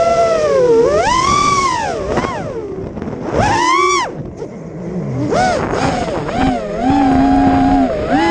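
GEPRC iX5 FPV quadcopter's motors whining, the pitch swooping up and down with the throttle: sharp rises about a second in and again near three and a half seconds, a quieter dip just after, then a steadier hum near the end.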